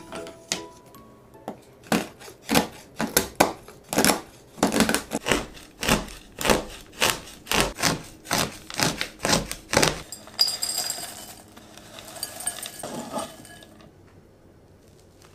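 A kitchen knife chops bar chocolate on a wooden cutting board with sharp, regular chops, about two a second. Then the chopped chocolate pieces are scraped up and tipped into a glass bowl with a rustling clatter.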